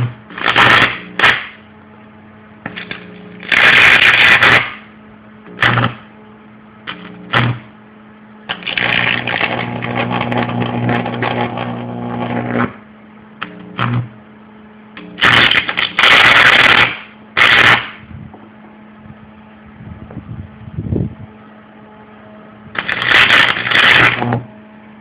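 High-voltage arc from a microwave oven transformer striking a speaker's magnet, buzzing and crackling in repeated bursts of one to two seconds, the longest about four seconds in the middle, with a steady hum between bursts. The arc makes the hot magnet crackle and pop as it splinters.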